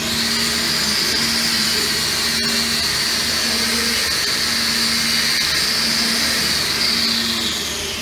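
Handheld angle grinder switched on and running at speed with a steady high whine, then switched off near the end, its pitch falling as the disc spins down.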